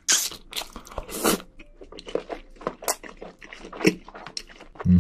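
Close-miked eating: a quick run of crunchy bites and chewing.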